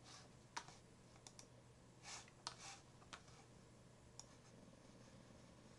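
Near silence: room tone with a handful of faint, scattered clicks from operating a computer while editing.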